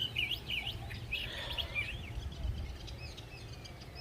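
Several songbirds chirping and calling, many short overlapping chirps and quick up-and-down whistles, with a low rumble underneath.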